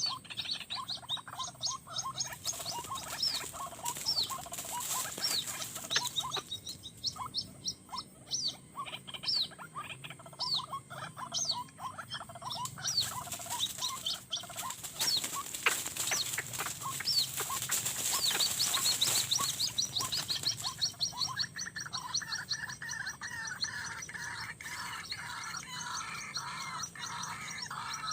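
White-breasted waterhen (ruak-ruak) calling: rapid series of short repeated notes over a steady high-pitched whine, with a stretch of rustling noise about halfway through.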